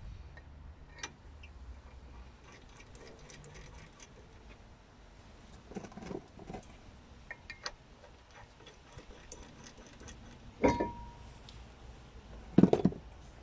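Metal clinks and small knocks as steel wheel bolts are handled and fitted through a new brake disc onto the hub, with one sharper knock that rings briefly about two-thirds of the way in and the loudest knocks near the end.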